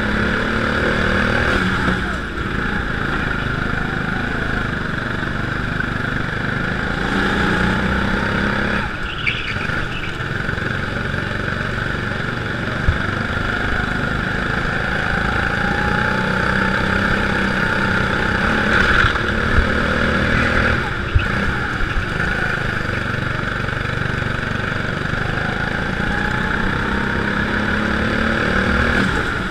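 Go-kart engine running flat out on a lap. Its pitch climbs slowly on each straight, about three times, and dips briefly when the throttle is lifted for the corners.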